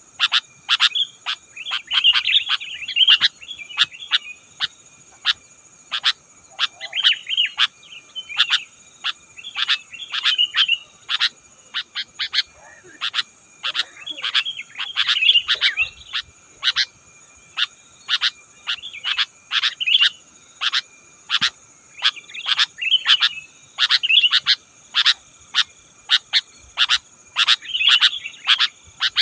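Sooty-headed bulbuls chirping in short bubbly phrases every couple of seconds, over a fast run of sharp clicking calls about two a second and a steady high insect drone.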